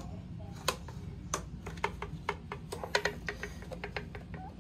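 Irregular light clicks and knocks of hard plastic mirror parts being handled and worked loose from their clips, several a second, over a low steady hum.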